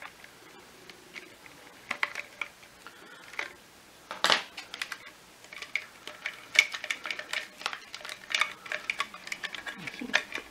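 Clicks, taps and rattles of the hard plastic motor housing and wire connector clips of a Miele Triflex HX1 Pro vacuum cleaner being handled and pried apart by hand. A sharp click comes about four seconds in, then a run of quick clicks and taps.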